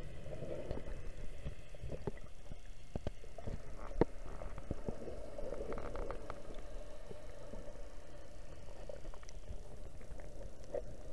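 Underwater sound picked up through a camera housing: a steady muffled rumble with bubbling that swells twice, and scattered sharp clicks and knocks, the loudest about four seconds in.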